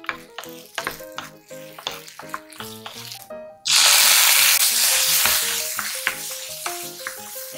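Okra stir-frying in butter in a nonstick pan, stirred with a wooden spatula. About halfway in, soy sauce hits the hot pan and sets off a sudden loud sizzle that slowly dies down.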